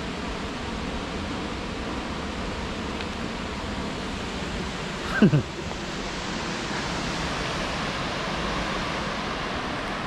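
Steady rushing of a tall waterfall, an even roar that holds at one level. About five seconds in, a brief sound drops quickly in pitch.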